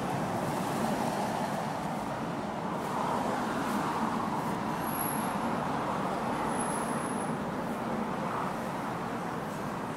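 Steady outdoor background noise: an even rumble with no distinct events. Two faint, brief high-pitched tones come about halfway through.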